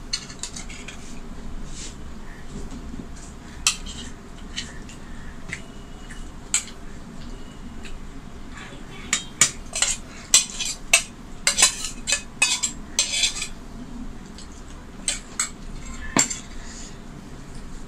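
Steel spoon clinking and scraping against stainless steel bowls and a plate as curry is served, with a quick run of clinks in the middle.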